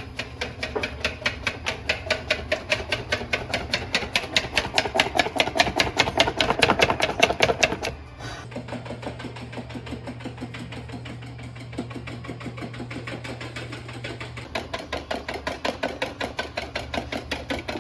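Wire whisk beating rapidly against the side of a bowl by hand, about eight strokes a second: whipping. The strokes pause briefly about 8 seconds in, go on more softly, then get louder again near the end.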